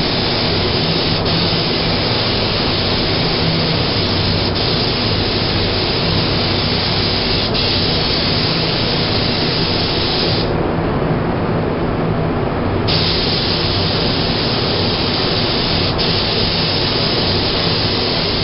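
Compressed-air spray gun spraying paint: a steady hiss over a lower steady hum, the hiss dropping away for about two seconds past the middle before it resumes.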